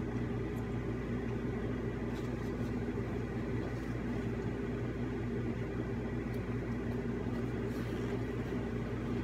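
A steady low mechanical hum, with a few faint soft clicks over it.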